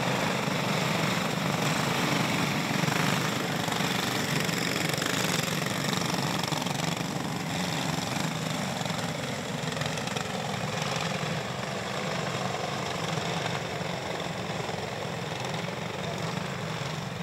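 Several small go-kart engines running together as the cage kart field circles the dirt track ahead of the start, a steady buzzing din that grows a little fainter in the second half.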